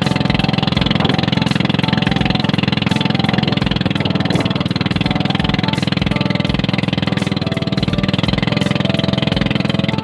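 Small gasoline engine of an outrigger banca running steadily at cruising speed, pushing the boat along.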